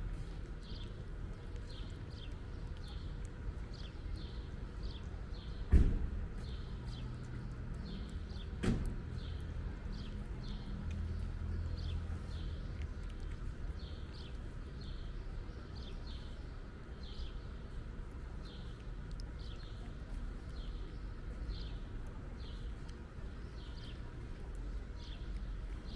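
Cat eating wet cat food close up: soft wet chewing and smacking, repeating about one and a half times a second. A sharp knock about six seconds in and a lighter one near nine seconds stand out above it.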